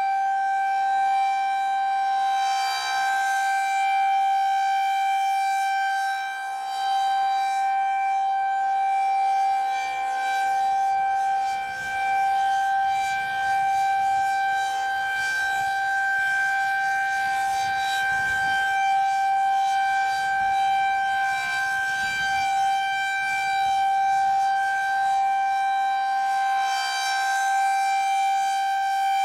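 Federal Signal 2001-SRN electromechanical outdoor warning siren sounding a steady single-pitch tone for its monthly test. The loudness swells and fades slightly every several seconds as the rotating siren head turns.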